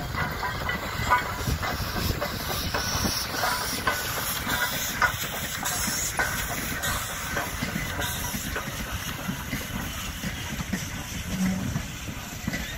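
CPR 0-6-0 steam locomotive passing slowly, hissing steam, with irregular clanks and knocks from its running gear and wheels on the rails as its wooden passenger coaches follow.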